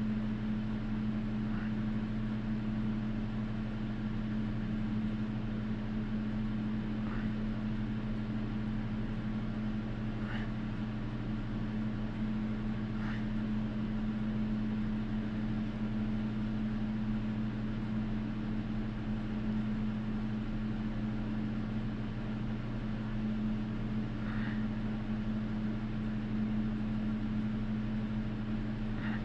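Steady low machine hum, unchanging throughout, with a few faint light ticks now and then.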